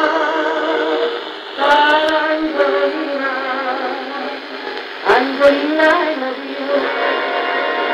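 A song with a singing voice and accompaniment, received as a medium-wave AM broadcast and played through the small loudspeaker of a Szarotka 2 battery-powered valve portable radio. The sound is thin, with no bass and no high treble.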